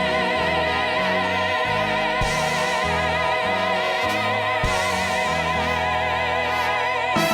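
A woman's voice holding one long note with a wide vibrato over a Broadway pit orchestra, the bass moving beneath it; the accompaniment changes just at the end.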